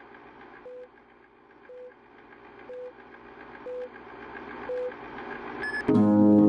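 Film countdown leader beeps: a short steady tone about once a second, six in all, over a faint hiss that slowly grows louder. A single higher beep near the end closes the countdown.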